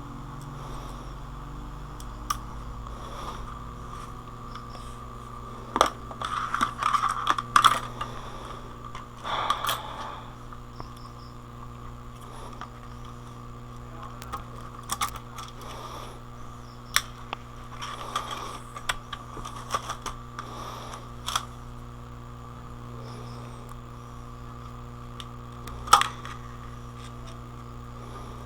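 Small metal parts and tools clicking and clattering on a workbench in irregular handling sounds, busiest in a flurry a few seconds in, over a steady electrical hum.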